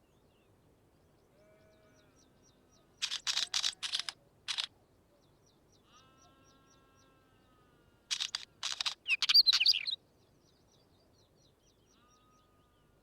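Wheatear singing: two short bursts of harsh, scratchy, crackling notes, the first about three seconds in and the second about five seconds later. Faint thin whistles come between the bursts.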